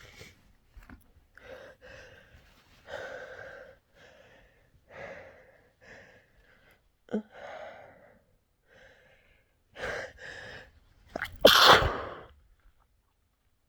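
A person with a head cold sneezing: a run of short, catching gasps as the sneeze builds, then one loud, explosive sneeze about eleven seconds in, the loudest sound of all.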